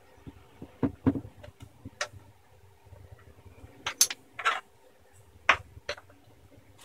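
Plastic screen bezel of a Lenovo S21e laptop being pressed onto the lid by hand, giving a handful of short, sharp plastic clicks and knocks at irregular intervals as its clips are pushed home; one clip is not seating easily.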